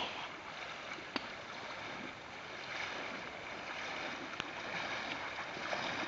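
Steady rush of a shallow river's current, with light splashing of water around wading legs and a landing net holding a thrashing fish. A sharp click about a second in.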